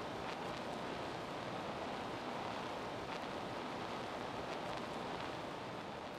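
Steady background hiss of room tone, with a few faint clicks.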